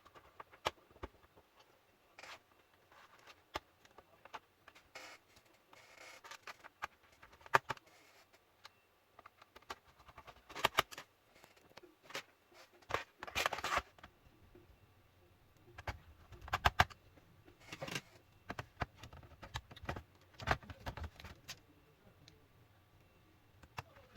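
Irregular clicks, taps and short scrapes of a laptop's plastic case and tools being handled, heaviest in a few clusters through the middle.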